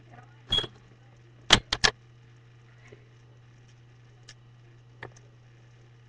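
A few sharp clicks and knocks over a steady low hum. The loudest are three quick clicks about a second and a half in, with fainter single ticks later.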